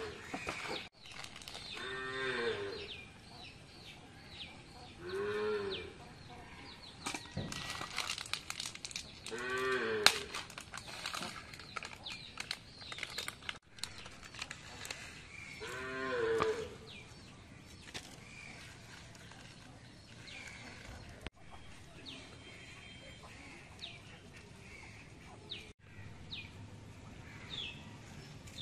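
A cow mooing in short calls, four times several seconds apart, each call rising then falling in pitch. Light rustling and crackling from handling in the middle, and faint bird chirps after the last moo.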